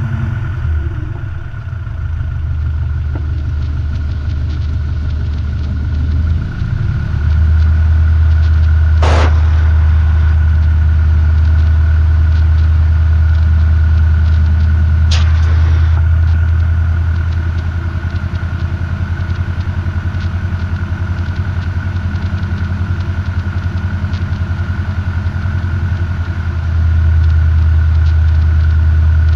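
Robin DR400 light aircraft's piston engine and propeller heard from inside the cabin, running at low power while taxiing. Power comes up a few seconds in, eases back about halfway, and comes up again near the end. Two sharp clicks sound over it.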